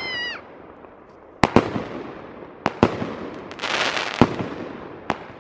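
Square consumer fireworks cake firing: a series of about six sharp bangs as its shells burst, with a hissing crackle for about a second near the four-second mark. It is firing evenly, not misfiring.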